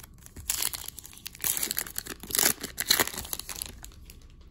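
Wrapper of a trading-card pack being torn open by hand: a run of crinkling and tearing sounds in quick bursts from about half a second in until shortly before the end.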